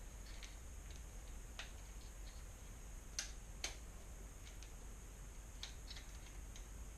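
Light scattered clicks of an Allen wrench working the clamp bolt of a bicycle shifter on the handlebar, with two sharper clicks a little past three seconds in.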